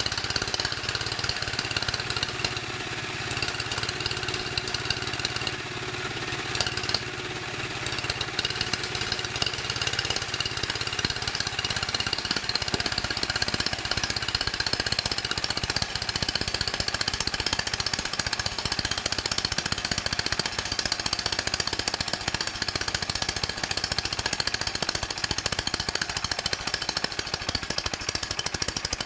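Sawmill machinery running steadily: an engine chugging with fast, even pulses under a steady high saw whine.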